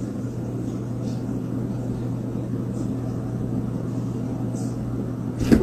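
Steady low electrical hum with rumbling background noise, broken by a short loud sudden sound at the very end.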